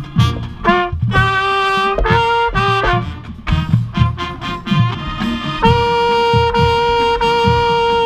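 High-school marching band playing, with a trumpet right at the microphone: a run of short, punched notes, then a long held note from a little past halfway, over a regular low drum beat.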